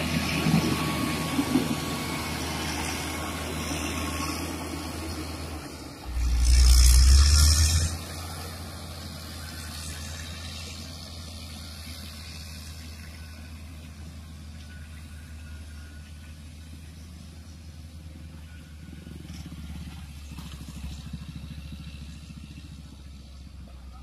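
Caterpillar motor grader's diesel engine running steadily as it grades the dirt road shoulder. It is loud and close at first, then fainter and more distant. About six seconds in, a loud low rumble on the microphone lasts about two seconds.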